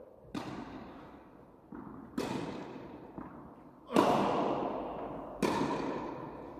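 Tennis ball struck back and forth by rackets in a rally, about four hits a second and a half apart, the loudest about four seconds in. Each hit rings out with a long echo in the indoor tennis hall.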